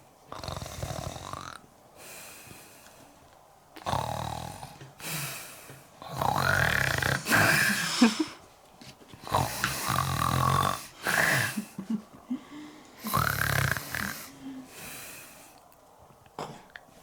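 Exaggerated comic snoring, voiced for a puppet: a run of long, loud snores with short pauses between them.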